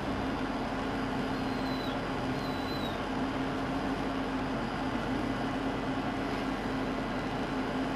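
Steady rumble of an idling vehicle with a constant low hum, and two faint short high chirps a couple of seconds in.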